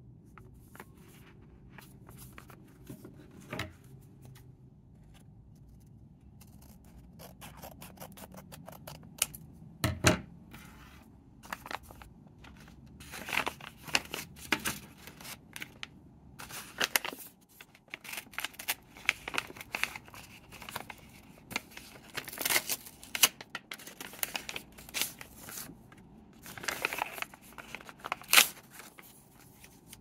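A paper envelope being opened and its voucher and cards pulled out and handled: crisp paper rustles and crackles, sparse at first and then faster and louder, with a few sharper snaps, the loudest about ten seconds in and near the end.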